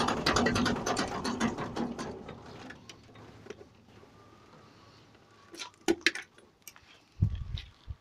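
Homemade potato harvester's chain-and-steel-rod conveyor and PTO-driven gearbox running with a fast metallic rattling clatter that slows and dies away over the first three seconds as the drive stops. A few knocks and low thumps follow near the end.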